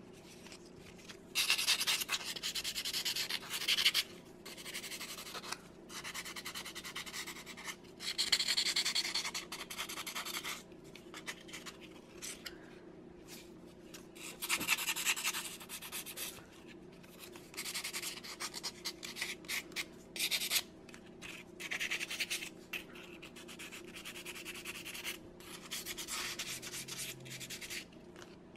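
Hand-sanding the edges of a cured carbon fiber ornament with a sheet of sandpaper: a run of irregular scratchy rubbing strokes, some lasting a second or two, with short pauses between. The sanding evens the seam where the two halves meet and rounds off sharp edges and points.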